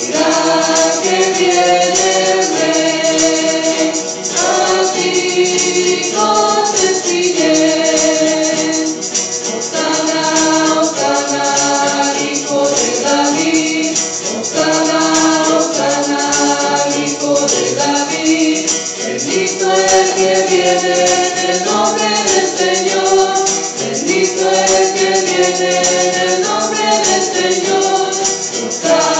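Mixed church choir singing a Spanish-language hymn with acoustic guitars strumming. A steady high rattle runs along with it.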